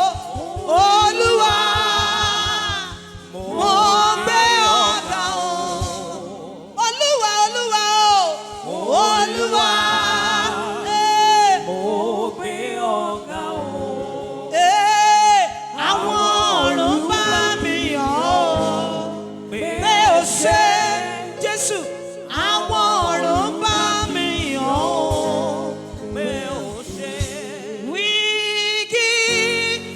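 Gospel worship singing in Yoruba: a voice sings long, sliding melodic phrases with held notes over backing music that has sustained chords and a steady low beat.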